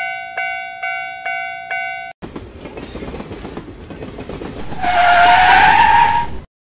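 Level-crossing warning bell dinging about twice a second, stopping about two seconds in. Then a train rumbling along the track, growing louder, with a horn blast about five seconds in that lasts over a second and rises slightly in pitch, before the sound cuts off suddenly.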